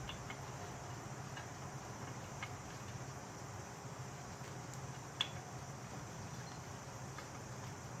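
Light metallic clicks of a bolt and heat shield being fitted by hand to a starter brace, over a steady low hum, with one sharper click about five seconds in.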